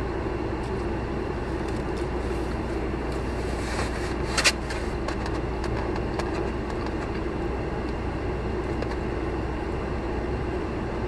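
Steady hum of a parked car running, heard inside its cabin, with a few faint clicks and one sharper click about four and a half seconds in.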